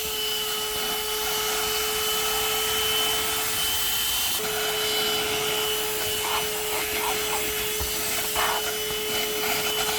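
CherylonPower mini cordless handheld vacuum running steadily with a small extension nozzle: a held whine over a rushing hiss, with a few short rubbing sounds in the second half.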